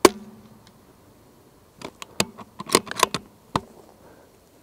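A single .22 LR rimfire shot from a Bergara B14 HMR bolt-action rifle fitted with a sound moderator: one sharp crack with a short ring. About two seconds later comes a quick run of metallic clicks as the bolt is worked to eject the case and chamber the next round.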